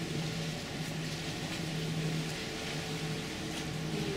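Steady low hum of a docking cruise ship's machinery over a constant hiss, with no break or change.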